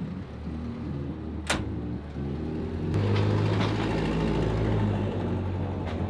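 Frameless slam-lock rear door of an ARE Z Series camper shell being shut by hand, latching with one sharp click about a second and a half in, over a low steady hum.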